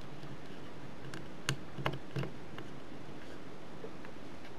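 Three small sharp clicks and taps within about a second, as needle-nose pliers press a jumper wire's end into a plastic solderless breadboard's contact hole.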